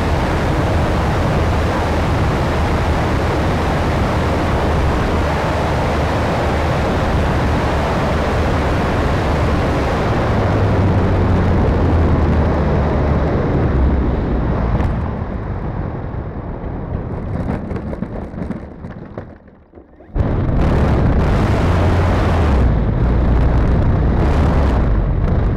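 Onboard sound of a radio-controlled P-51 Mustang model: a steady, loud rush of propeller and motor noise with wind buffeting the camera. It fades as the throttle comes back for landing, dips almost away, then a loud low rumble cuts back in suddenly about twenty seconds in while the model is on the runway.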